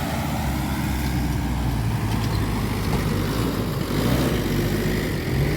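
Pickup truck engine running steadily with a low hum.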